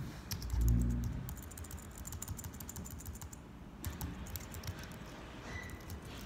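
Typing on a computer keyboard in two short runs of key clicks, one about half a second in and one around the four-second mark. A dull thump, the loudest sound, comes with the first run.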